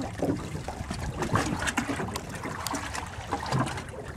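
Water sloshing and lapping against a small fishing boat's hull, with scattered light knocks and clicks.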